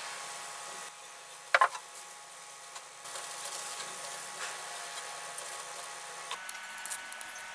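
A flat paint brush working a green gel over an aluminium tool cover, with light rubbing and small ticks of the bristles and handle against the metal near the end. A sharp double knock comes about a second and a half in, over a steady background hiss.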